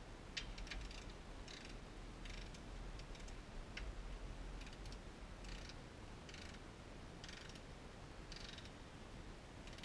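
Hand socket ratchet clicking in short strokes, roughly one burst every second, as it works a bolt at the nose of the crankshaft. A low steady hum runs underneath.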